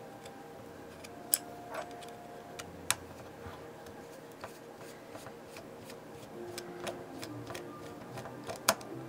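A small screwdriver working a tiny Phillips screw out of a Philips FC931 cassette deck mechanism: scattered faint clicks and ticks of the tool and screw against the metal chassis, a sharper click near the end.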